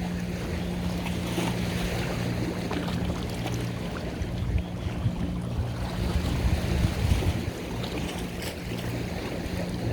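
A boat's engine running with a steady low drone, over water wash and wind buffeting the microphone.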